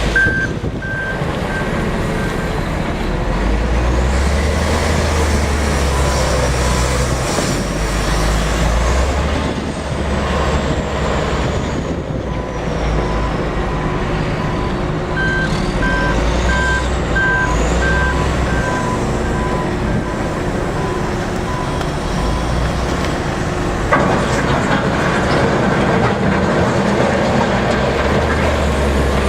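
Heavy construction machines' diesel engines running, with reversing alarms beeping: a lower-pitched alarm through the middle of the stretch and a higher one overlapping it for a few seconds. A single sharp knock comes near the end.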